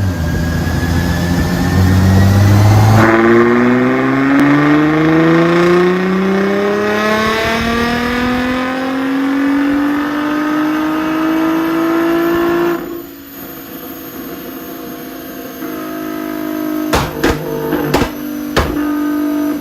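Sports car engine pulling hard, its pitch rising steadily for about ten seconds, then the throttle closes suddenly and it falls back to a lower, quieter drone. A drum beat comes in near the end.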